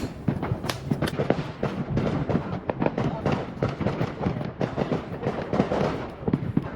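Fireworks crackling and popping: a dense, irregular run of sharp pops, several a second, with a few louder bangs standing out.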